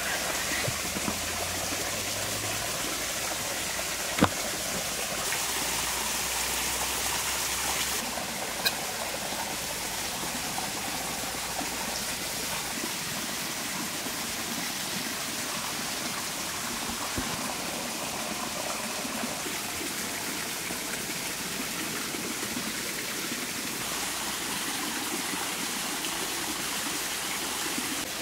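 Steady rushing of a stream, with a few sharp taps of a knife on a wooden cutting board, the loudest about four seconds in.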